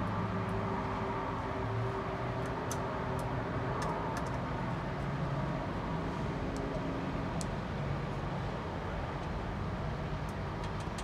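Steady low background rumble with a faint hum, with a few faint scattered ticks as small wires and terminal screws on a controller socket are handled.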